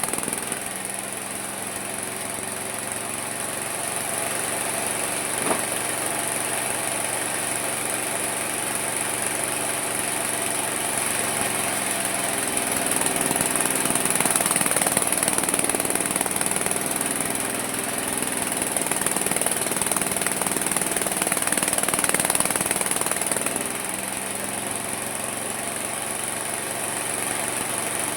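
Homemade mini sawmill running and sawing through wood. Its motor's pitch sags twice as the blade takes load, and a steady high whine runs throughout.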